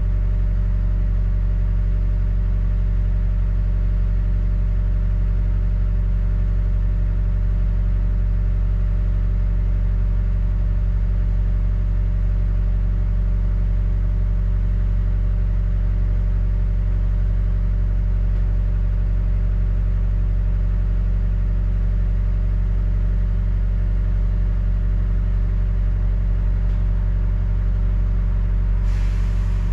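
Steady low engine rumble of a double-decker bus heard from inside the cabin, with a brief hiss near the end.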